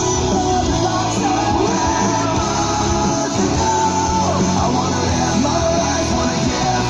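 Chart music with singing and guitar played loudly through a portable speaker with two woofers and two midrange drivers, its bass notes running steadily under the vocal.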